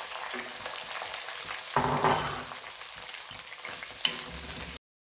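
Chopped green capsicum frying in hot oil in a kadai, sizzling steadily while a wooden spatula stirs it. The sizzle swells louder about two seconds in, there is a sharp click near the end, and then the sound cuts off abruptly.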